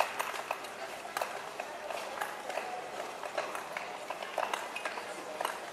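Speed skating rink ambience: irregular sharp clicks and knocks over a low hiss, with no steady rhythm.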